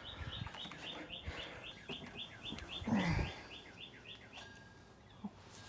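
A small bird singing a fast trill of short, high, evenly spaced chirps, about five a second, that stops a little over four seconds in. About three seconds in there is one brief, louder sound that falls in pitch.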